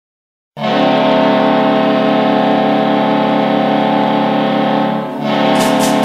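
Hockey arena goal horn blaring a steady multi-tone chord, starting abruptly about half a second in. It dips briefly about five seconds in, then carries on with quick rhythmic hits joining near the end.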